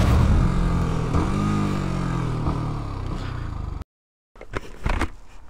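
Motorcycle engine running and revving, its pitch rising and falling about a second and a half in, then cut off abruptly near four seconds. A few sharp knocks follow about a second later.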